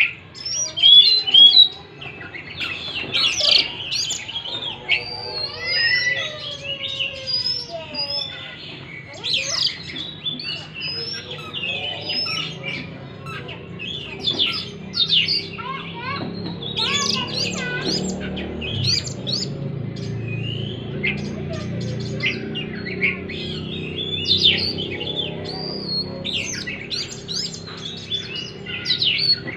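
Oriental magpie-robin singing a rapid, varied song of sharp chirps and gliding whistles. A low hum sits under it from about halfway through.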